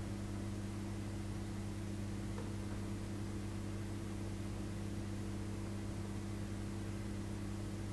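Steady electrical mains hum, a low tone with a couple of evenly spaced higher overtones, over a faint hiss.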